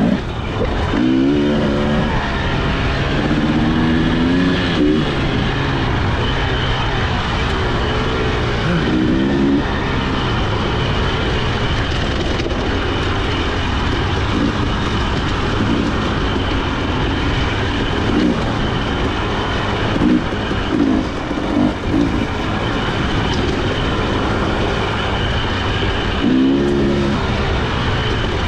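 Husqvarna TE300i two-stroke dirt bike engine under way, its pitch rising and falling several times as the throttle is worked, over a steady rushing noise.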